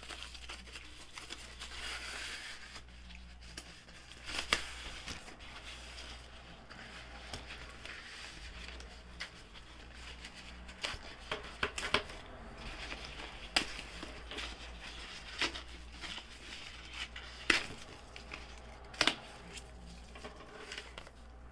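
Tissue paper rustling and crinkling as it is unfolded and pulled apart by hand, with a handful of sharp clicks and taps.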